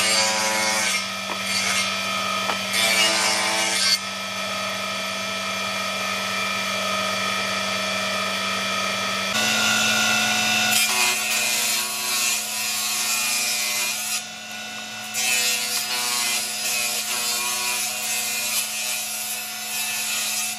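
Table saw cutting a groove along a board of very hard magkuno ironwood: the motor's steady hum under the blade's cutting noise, which comes in stretches of several seconds as the board is fed through.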